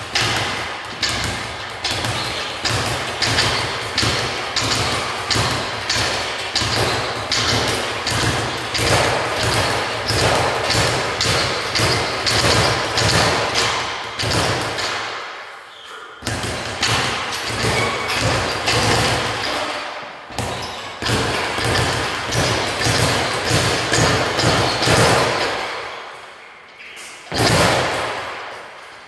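Speed bag punched rapidly with gloved fists, rattling against its rebound platform in a fast, continuous drumming. The drumming lets up briefly three times: about halfway, a few seconds later, and near the end.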